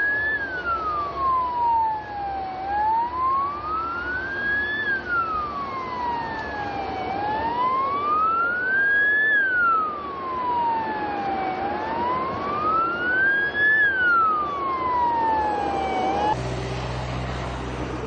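Emergency vehicle siren in a slow wail, its pitch sweeping down and back up about every four and a half seconds. It cuts off near the end, leaving a steady low vehicle hum.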